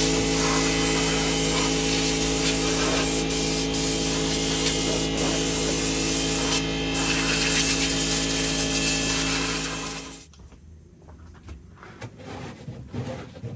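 A power tool's motor running steadily with a hiss, then switched off about ten seconds in, leaving faint scattered sounds.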